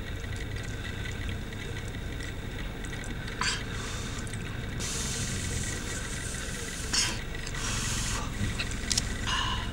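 Steady low hum of a car interior, with three brief smacking noises about three and a half, seven and nine seconds in, from a toddler chewing food.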